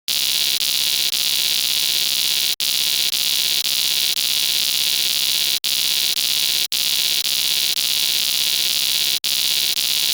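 Electronic error buzzer sounding as one harsh, steady buzz for about ten seconds, broken by a few split-second gaps, then cutting off suddenly.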